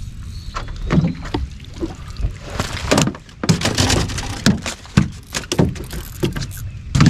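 A small hooked bass splashing and thrashing at the surface as it is reeled up beside the boat, with irregular splashes and knocks on the boat's deck, busiest about three to four seconds in and again near the end.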